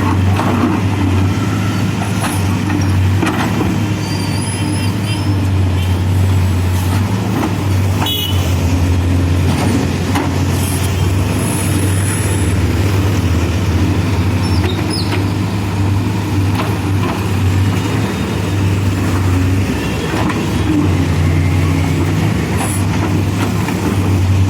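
CASE backhoe loader's diesel engine running steadily at a loud, even drone, with a few scattered clicks over it.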